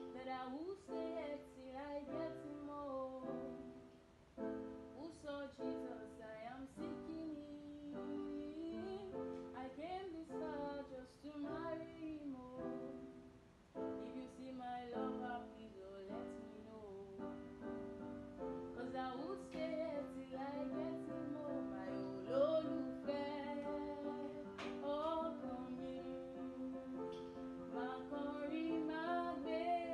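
Music: a woman singing a Yoruba love song over sustained keyboard chords.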